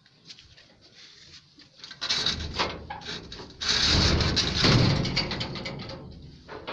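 Sheet-metal door being swung and pushed shut, a loud scraping, rattling noise that starts about two seconds in, peaks for a second or two and then fades.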